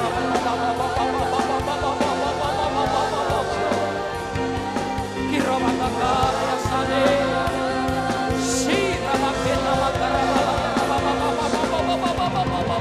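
Live church worship band playing, with voices singing over it.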